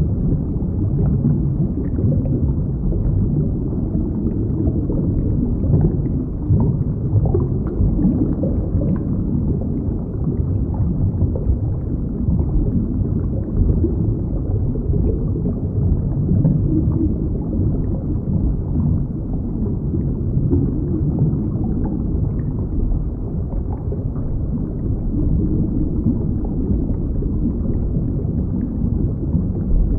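Underwater sound picked up by a submerged camera: a steady, muffled low rumble of moving seawater and surge, with faint scattered ticks.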